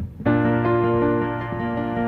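Background music: a slow keyboard piece of held notes over a sustained low bass note, starting about a quarter second in after a brief lull.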